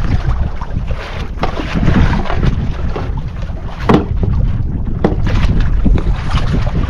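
Wind rumbling on the microphone over water washing against an outrigger boat's hull, with a couple of sharp knocks about four and five seconds in.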